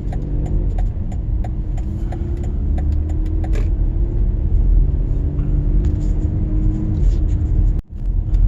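Car engine and road rumble heard from inside the cabin as the car pulls away, the engine pitch slowly rising as it picks up speed. A turn-signal indicator ticks about twice a second and stops about three and a half seconds in. The sound drops out briefly near the end.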